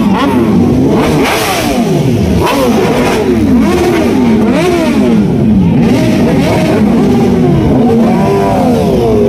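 Several superbike engines being revved at once, throttles blipped up and down over and over so their rising and falling pitches overlap.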